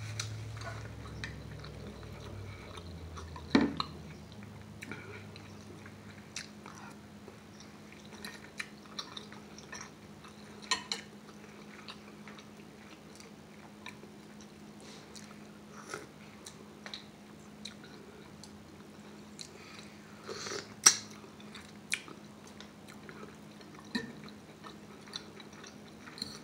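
Chewing and biting of a mouthful of ramen noodles and mussels, with scattered light clicks from a metal fork and mussel shells against the bowl. One sharp click comes a few seconds in and the loudest about three-quarters of the way through, over a faint steady hum.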